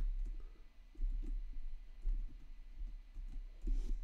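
A few scattered keystrokes clicking on a computer keyboard as code is typed, over a steady low hum.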